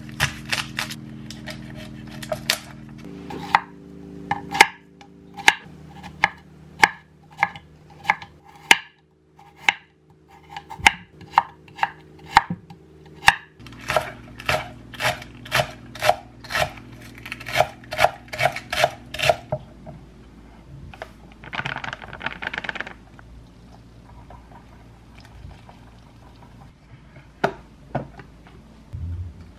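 Kitchen knife chopping vegetables on a wooden cutting board, including a green onion sliced into thin rounds. The knife strikes come in a steady run of about two a second, quicken after about fourteen seconds and stop about twenty seconds in. A brief rustle follows, then a few light clicks.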